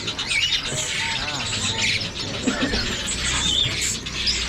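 Many caged birds of several kinds chirping and calling over one another in a dense, unbroken chorus of short, high notes.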